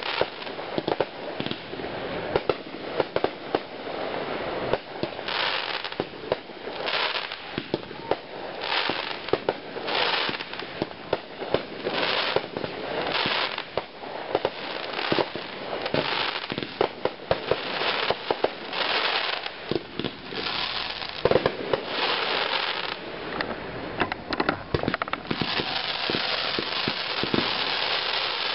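Fireworks display: aerial shells launching and bursting in quick succession, a steady run of sharp bangs with hissing and crackling between them.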